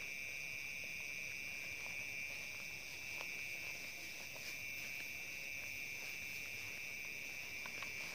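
Steady chorus of night insects, a continuous high-pitched trill, with a few faint ticks and rustles of footsteps through tall grass.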